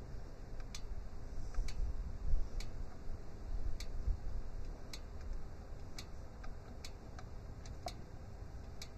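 A light, sharp tick about once a second, with a low rumble in the first half as a hand turns the oil drain plug out of the tractor's oil pan.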